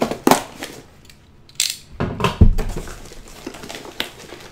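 Toy packaging being opened and handled, crackling and crinkling in a series of short bursts, with a dull thump about two and a half seconds in.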